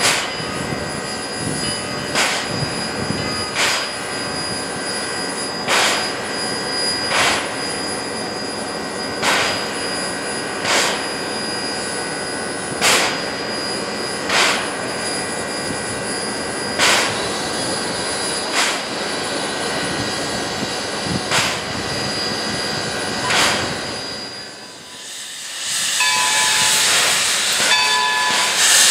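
Baldwin 0-6-0 steam locomotive standing, with a steady high whine and a soft regular beat about every one and a half seconds. Near the end, after a brief drop, a loud hiss of steam blows from the cylinder cocks.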